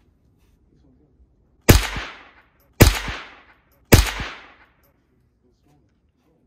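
Three single shots from an MP5-style carbine, fired a little over a second apart, each followed by a short echoing tail.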